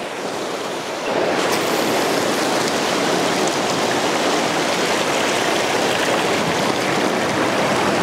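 Ocean surf breaking and washing over shoreline rocks, a steady rush of white water that gets louder about a second in.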